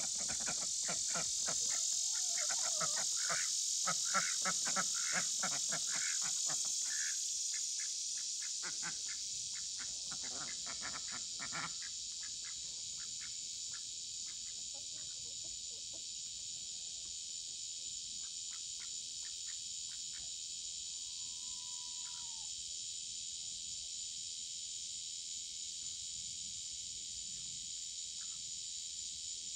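Steady high-pitched chorus of summer-night insects. A rapid run of short pulsed sounds rides over it for the first dozen seconds, and two brief calls come later.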